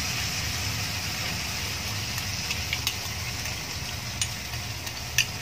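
Squid, onion and bell pepper frying in an aluminium wok, with a steady sizzle as the sauce is poured in over them and a steady low hum underneath. A few light clicks come in the second half.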